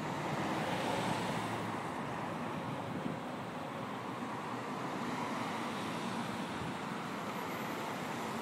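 Steady rushing noise of distant road traffic, swelling slightly about a second in.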